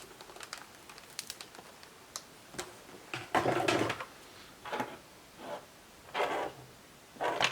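Small laptop parts being handled and pried loose, most likely the Wi-Fi card coming out: light plastic and metal clicks and taps, then several short scraping sounds from about three seconds in.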